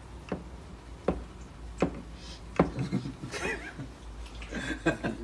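Four sharp knocks about three quarters of a second apart, then a stretch of softer, scattered noise.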